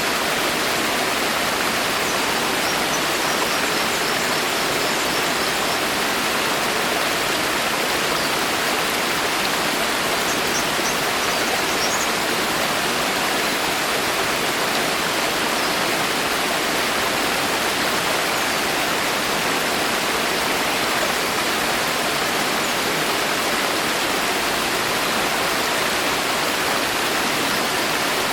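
Steady rain falling in a forest: an even, unbroken hiss of water.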